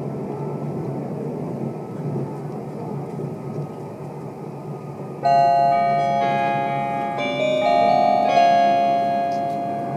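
Steady running rumble inside a Meitetsu 2000 series μSKY train car. About five seconds in, an electronic chime melody of several stepped notes starts over it and plays on: the on-board chime that comes before the automatic next-stop announcement.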